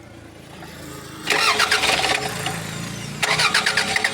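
Toyota RAV4's 1AZ four-cylinder engine being started: a quiet starter churn, then the engine catches about a second in and runs, and it gets louder again a little after three seconds. This is the engine with the knock that is being diagnosed.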